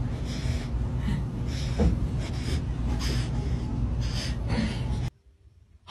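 Rapid, noisy breathing in short puffs, about two a second, over a low rumble; it cuts off sharply about five seconds in.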